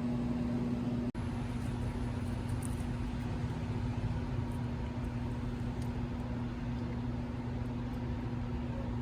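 Steady outdoor street background noise, like distant traffic. A low steady hum stops at a sudden cut about a second in.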